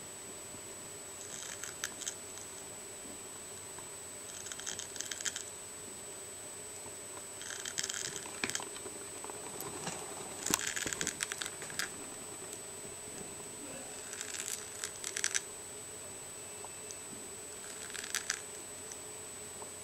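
African giant snail rasping at an eggshell with its radula: bursts of fine crackling clicks, each about a second long, coming every few seconds.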